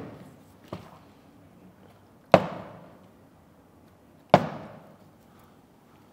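Three sharp hits: a light one just under a second in, then two loud ones about two seconds apart, each trailing off in a short reverberant decay.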